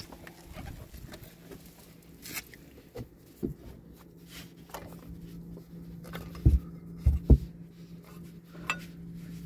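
Scattered light taps, rubs and clicks of a new rubber serpentine belt being worked by hand onto the engine's pulleys. A few dull thumps come about six to seven seconds in, over a faint steady hum.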